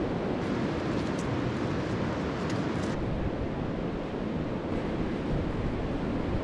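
Steady outdoor rushing noise, heaviest in the low end, typical of wind buffeting the microphone. A few faint light clicks are heard in the first three seconds.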